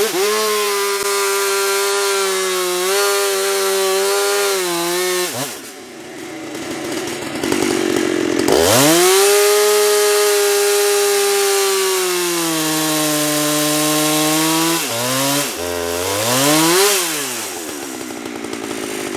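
Chainsaw running at full throttle, cutting lengthwise through a log on a chainsaw mill. It eases off about five seconds in, runs up to full speed again, and its pitch sags a little under the load. Near the end it is blipped once and drops back.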